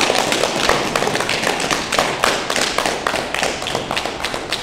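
A small group of people clapping, the quick, uneven claps echoing in a large hard-walled sports hall.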